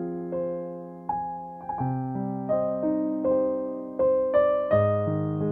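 Background music: a slow, gentle piano melody of single notes and chords that ring and fade.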